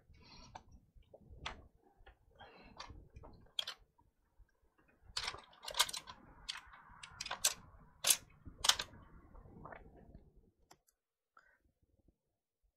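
Small sharp clicks and soft scraping of a plastic pry tool and fingers working the battery connector inside an opened laptop, disconnecting the battery for a CMOS reset. The clicks come irregularly, thickest and loudest in the middle, and stop a couple of seconds before the end.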